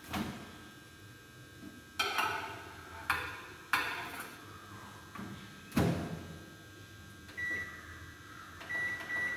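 Convection microwave oven being loaded: the door latch clicks open, a metal baking pan knocks and clatters against the oven, and the door shuts with a heavier thump about six seconds in. Short high beeps follow near the end as the control buttons are pressed to set it for baking.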